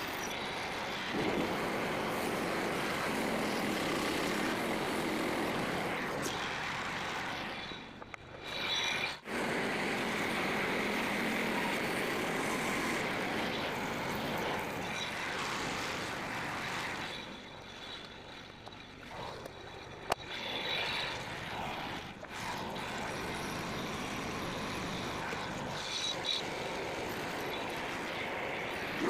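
Frontier OS27 portable band sawmill running steadily, its small gas engine driving the band blade through a white oak cant to cut shake shingles. The sound thins out briefly about eight seconds in and again around eighteen seconds, then picks back up.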